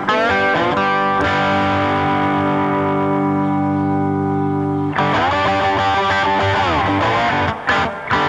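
Overdriven blues electric guitar: notes bent so they slide in pitch, a long held note from about one second to five seconds in, then more string bends, with a couple of brief breaks near the end.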